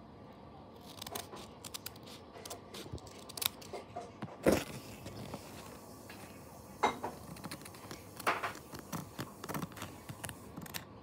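Stickers and paper being handled for a journal spread: scattered crinkles, scrapes and small clicks. A louder scratchy stroke comes about four and a half seconds in, with more near the end.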